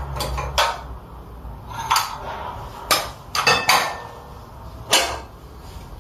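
Porcelain paint dishes clinking and knocking as they are moved and set down on the table: a series of sharp clinks at irregular intervals.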